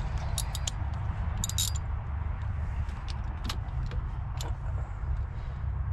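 Light metallic clinks and clicks of hand tools being handled, such as a socket and wrench, in scattered bunches over a steady low rumble.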